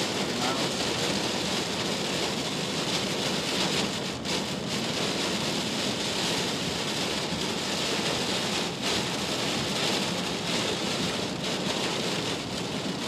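Heavy storm rain coming down steadily in an even, dense hiss.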